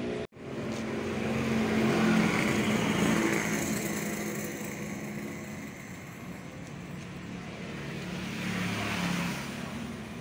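Motor vehicle engine running past on the road, growing louder about two seconds in and again near the end as traffic goes by.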